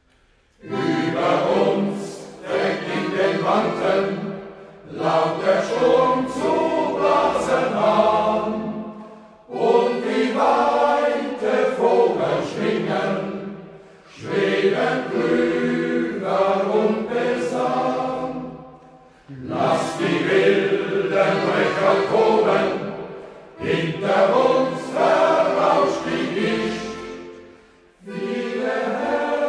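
Sailors' choir singing a slow song in phrases of about four to five seconds, each ending in a short breath pause before the next begins.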